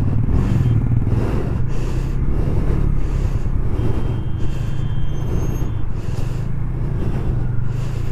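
Motorcycle engine running steadily at low road speed, with wind and road noise on the rider's microphone swelling about twice a second. A faint high whine comes in about four seconds in and fades by about six seconds.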